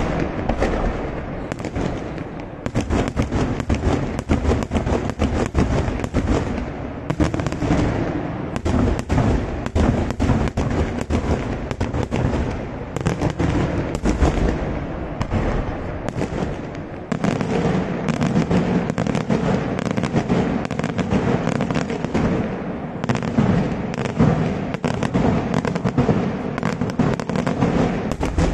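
Daytime fireworks display: a dense, continuous barrage of aerial shells bursting, many sharp bangs each second over a low rolling rumble.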